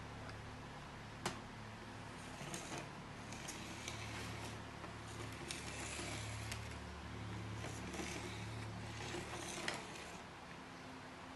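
Small objects being handled: scattered clicks, taps and rubbing, with two sharper clicks about a second in and near the end, over a steady low hum.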